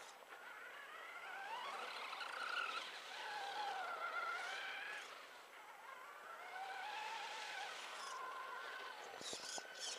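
HSP Brontosaurus 1/10 RC monster truck's motor and gears whining, the pitch rising and falling over and over as the throttle is worked, with a few sharp clicks near the end.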